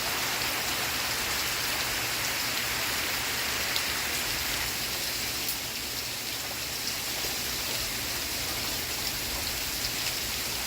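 Steady rain falling, an even hiss of drops with a few sharper single-drop ticks.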